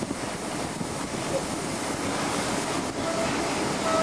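Rush of wind and rail noise from a Class 90-hauled Mk3 train running at speed, heard through an open window with wind buffeting the microphone. A steady whine comes in near the end.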